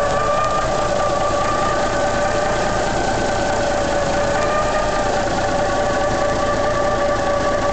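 A Caterpillar 425 hp truck diesel engine running steadily at idle while it warms up after a cold start, heard up close at the open engine bay. A steady whine sits over the engine's rumble.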